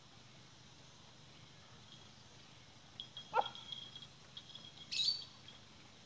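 A dog gives one short rising yelp about halfway through, over outdoor background of high, pulsing insect-like chirping. About a second and a half later comes a brief high scratchy sound.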